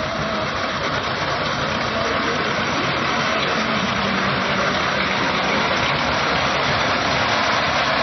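Tractor engine running steadily under load while its front-mounted reaper cuts standing wheat, a loud, unbroken mechanical noise.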